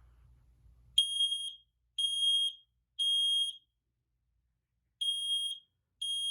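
Kidde i9010 smoke alarm sounding its test alarm in the temporal-three pattern: three high-pitched half-second beeps a second apart starting about a second in, a pause, then the next group of beeps beginning near the end.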